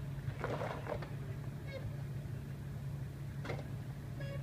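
Jeep Wrangler's engine idling steadily as a low hum, with two brief scuffs and a few short high calls in the background.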